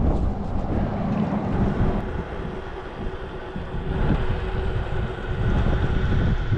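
Strong wind buffeting the microphone, a heavy uneven rumble that eases briefly midway and builds again.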